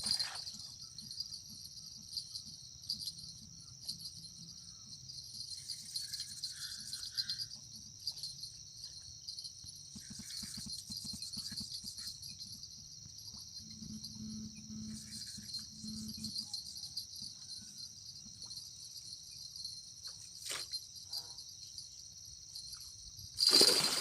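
Insects chirring in a steady, continuous high chorus, with a few faint clicks and a brief louder noise near the end.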